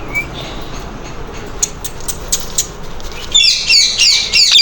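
Pet parrot giving a few short, high chirps, then a burst of loud, rapid, harsh screeching calls starting about three seconds in.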